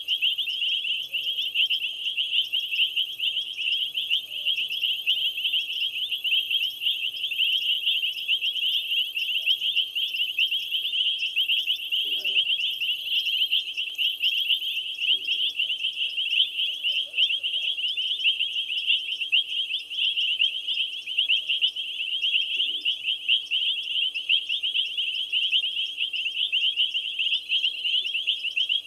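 Dense night chorus of insects, mostly crickets, a continuous high-pitched rapid trilling. A second, even higher pulsing call comes and goes through the first half.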